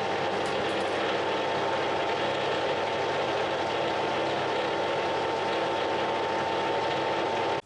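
Workshop machine running steadily: an even mechanical noise with a constant whine, cutting off abruptly near the end.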